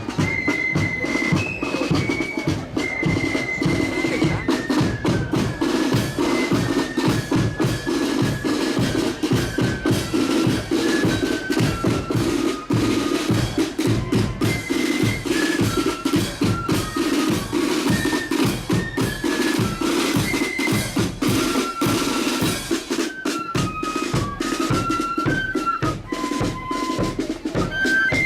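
Marching flute band playing a tune: a single high melody line stepping from note to note over fast snare drumming and bass drum beats.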